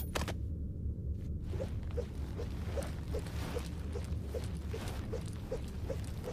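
Kunai knives being handled: a short scrape at the start, then an even run of light ticks, about two and a half a second, from about a second and a half in, over a steady low hum.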